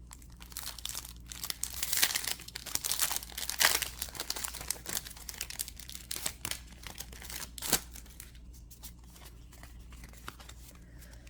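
Foil Pokémon booster pack wrapper crinkling and tearing open, loudest in the first few seconds, dying down to faint rustling after about eight seconds.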